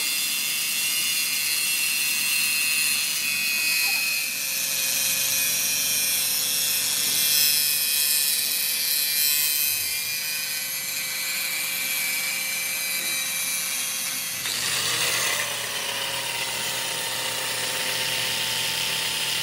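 Angle grinder with an abrasive disc grinding down the surface of a damaged steel excavator bucket pin, a steady, loud grinding hiss. About two-thirds of the way in, the tone of the grinding shifts.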